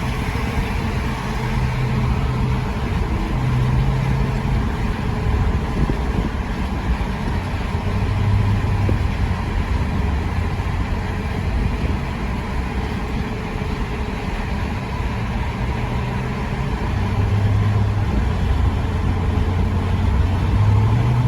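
Steady engine and road drone of a vehicle being driven, with a low hum that steps up and down in pitch every few seconds.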